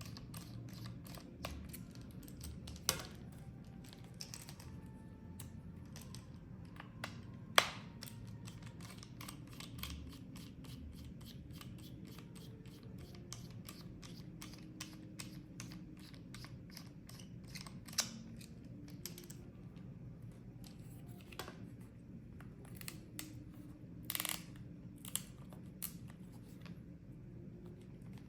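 Faint clicks, taps and scrapes of a precision screwdriver and small plastic parts being handled as Torx T5 screws are taken out of a VR tracker. A few sharper clicks stand out, and a low hum runs underneath.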